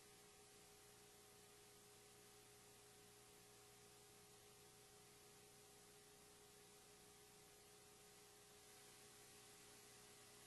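Near silence: a faint steady hiss with a thin, constant hum.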